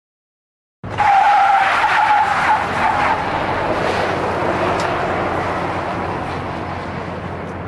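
Tyres of an electric GMC Hummer EV pickup squealing as it turns hard on concrete, starting suddenly about a second in with a wavering squeal, then easing into a fading rush of tyre noise.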